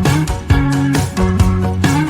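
Upbeat background music: a plucked guitar over a bass line and a steady drum beat.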